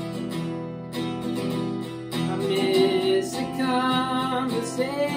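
Solo singer-songwriter performance: a guitar strummed in steady chords, joined about two seconds in by a male voice singing long held notes over it.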